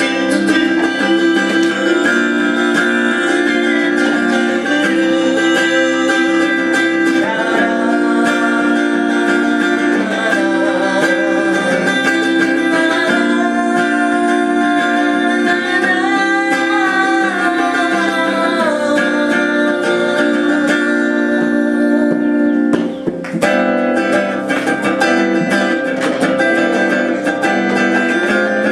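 Acoustic guitar being played with a man singing over it, the music pausing briefly about three-quarters of the way through.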